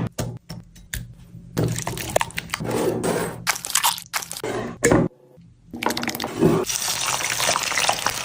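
Wet squishing and crunching of food being handled during shawarma preparation, in short irregular bursts, with a brief pause about five seconds in.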